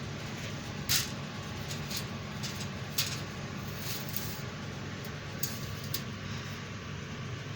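Air conditioner running with a steady hum, with scattered short scratching clicks over it, the loudest about a second in and at three seconds.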